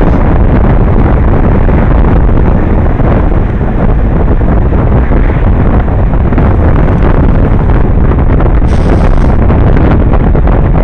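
Loud, steady wind buffeting the microphone of a camera riding on a moving road bike, with a brief higher hiss about nine seconds in.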